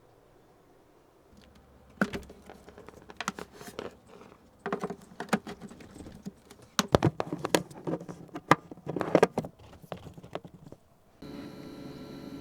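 Irregular clicks and knocks of small hard objects being handled, close by. Near the end they stop and a steady machine hum with a thin high whine starts.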